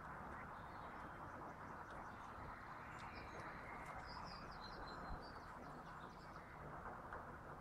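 Steady outdoor background hiss, with a small bird chirping a short run of high calls about three to five seconds in.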